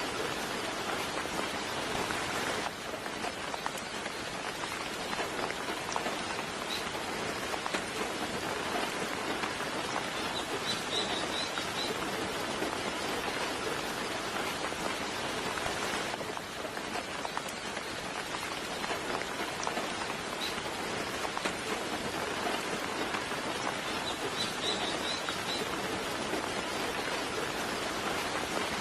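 Steady soft rain falling, with a few brief high bird chirps heard twice, about a third of the way in and again near the end.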